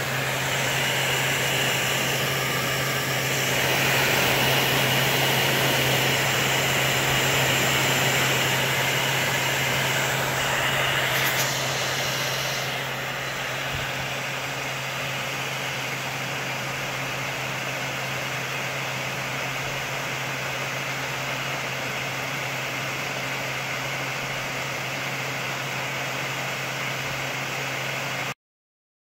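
Steady hissing roar of a gas torch flame heating a thermoelectric module, with a low hum under it. About halfway through the hiss loses its top end and settles slightly quieter.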